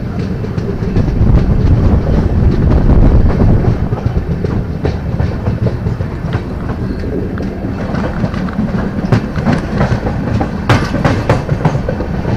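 Running noise of a moving LHB passenger coach heard from its open door: a steady low rumble of wheels on the track with wind. A run of sharp clicks comes from the wheels over the track in the last few seconds.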